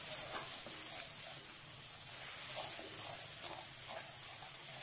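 Hot oil sizzling with a steady hiss as ground spices are lightly fried in a steel kadhai, with faint scrapes of a wooden spoon stirring them.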